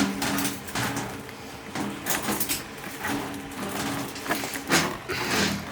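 Steel ball inside a tuba, dragged by a rare-earth magnet on the outside, rolling and scraping against the brass with uneven knocks as a dent is pushed out.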